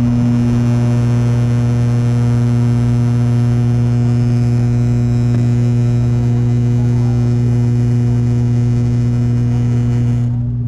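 ATR 72-600 turboprop's propellers and engines running at steady power, a loud, even drone with a strong low hum and a hiss above it. The hiss drops away near the end.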